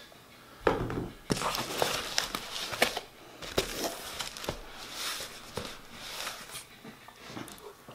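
Cardboard shipping box being opened: packing tape tearing and cardboard rustling and scraping in irregular bursts with sharp clicks, starting about a second in.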